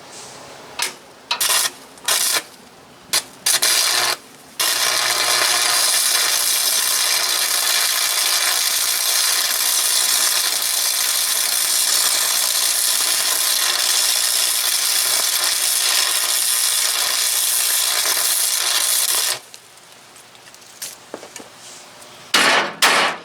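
Electric arc welding on a steel skid steer bucket: a few short welds in the first few seconds, then one long bead of steady, even crackling hiss lasting about fifteen seconds before it stops. A few loud, sharp sounds come near the end.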